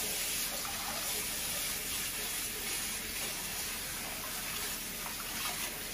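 Bathroom sink tap turned on and running steadily, water splashing into the basin as a pair of waterproof hair clippers is rinsed under the stream.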